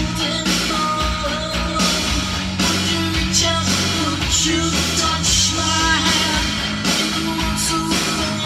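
A rock song playing from a vinyl record, with a singing voice over electric guitar and drums.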